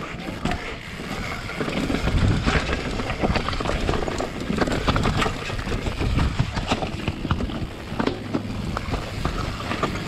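YT mountain bike riding down a rough, rocky trail: tyres crunching over rocks, with constant clattering and knocking from the chain, frame and suspension on each hit, and wind on the microphone.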